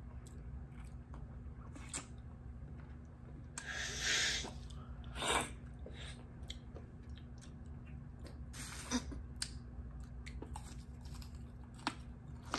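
Close-up chewing and crunching of a frozen popsicle, with a few louder crunches spaced a few seconds apart over a steady low hum.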